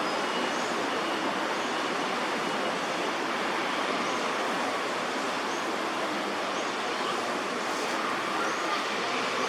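Steady roar of city traffic, with a few faint, short, high chirps scattered over it.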